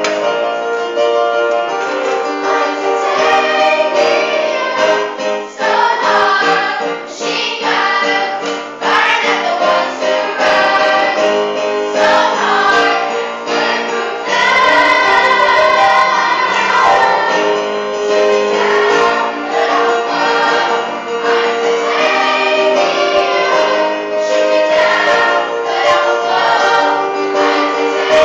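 A harmony choir singing, several voices holding and moving through chords together.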